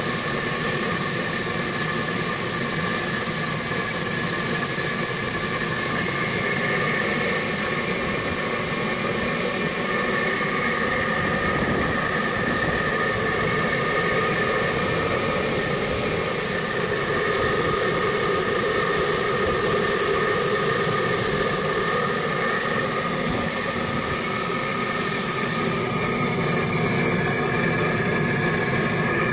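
A blowtorch hissing steadily as it heats the hot bulb of a 1949 Bolinder-Munktell BM20's hot-bulb engine before starting. The hiss carries a few steady whistling tones.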